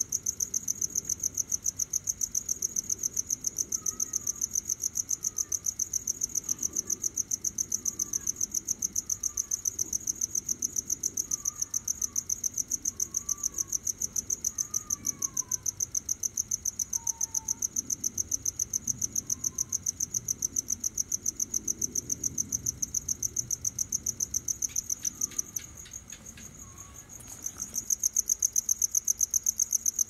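Cricket chirping in a steady, rapid pulsing rhythm, several chirps a second. It pauses for a couple of seconds about 25 seconds in, then starts again; faint short gliding calls sound in the background during the first half.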